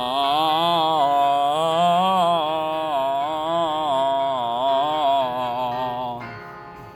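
A single voice singing one long sustained 'ah' vowel, stepping its pitch up and down in a repeating three-tone pattern as a vocal warm-up exercise. The note fades out about six seconds in.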